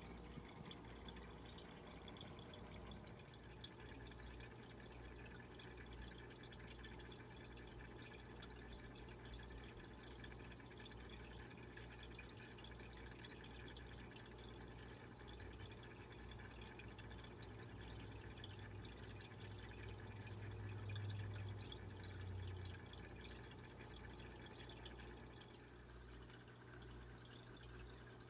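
Faint bubbling and dripping of an aquarium's aeration, with a low steady hum that swells briefly about two-thirds of the way through.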